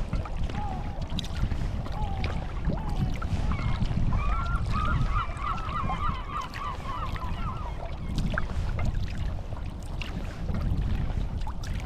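Wooden Greenland paddle strokes in the water, with wind rumbling on the microphone. Over this, water birds call: a few single calls in the first seconds, then a rapid run of short calls from about four to eight seconds in.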